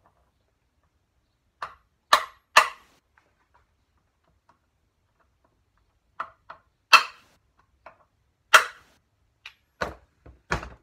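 About a dozen sharp hammer blows on metal, irregular and some in quick pairs, knocking a driver into the primary chaincase cover screws of a BSA A70L engine to loosen them. The screws are in very poor condition.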